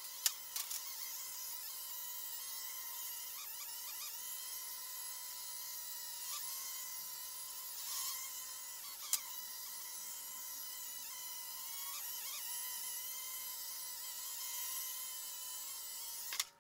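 A cheap toy quadcopter drone flying: its small electric motors and propellers give a steady high-pitched whine, with a few light clicks. The whine cuts off suddenly near the end as the motors stop.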